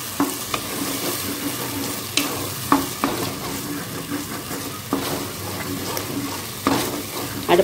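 Ground masala paste sizzling in hot oil in a pressure cooker as a wooden spatula stirs it, with a steady hiss and a few sharp knocks where the spatula hits the pot.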